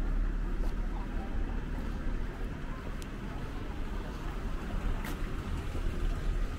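Street ambience: a steady low rumble with a light, even background hiss and a few faint ticks.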